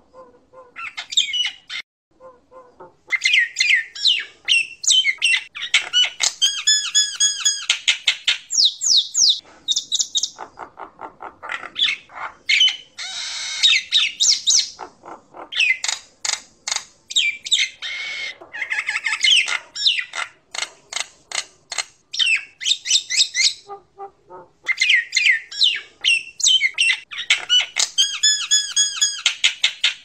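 Common myna (jalak nias) calling almost without let-up: rapid runs of harsh, chattering squawks mixed with clear rising and falling whistles, broken by a few brief pauses.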